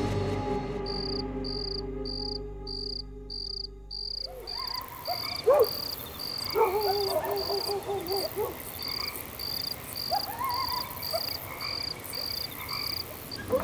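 Night ambience of a cricket chirping steadily, about twice a second, with frogs croaking in wavering calls. Lingering music tones fade out over the first few seconds.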